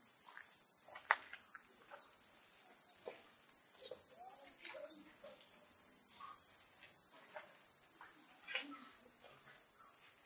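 Steady high-pitched insect chorus, with scattered light knocks and one sharp click about a second in.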